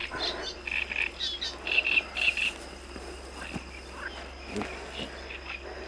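Night chorus of frogs and crickets: short pulsed calls repeat several times in the first couple of seconds over a steady high insect trill, with a few soft knocks later on.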